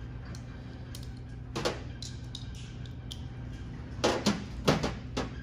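A few sharp knocks and clanks over a steady low hum: one about a second and a half in, then a louder cluster of four near the end.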